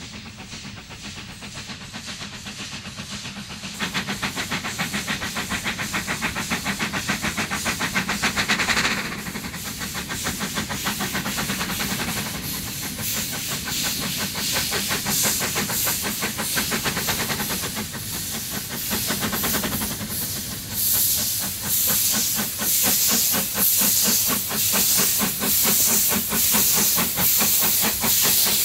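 South African Railways Class NG15 2-8-2 narrow-gauge steam locomotive, built by Henschel in 1931, working a train: rapid steady exhaust chuffs with steam hissing. It gets louder about four seconds in and is loudest in the last third as it draws near.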